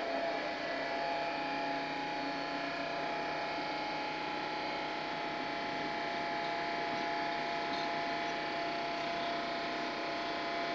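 ST44 (M62) diesel locomotive's two-stroke V12 engine idling steadily, with a constant tone held over the engine note.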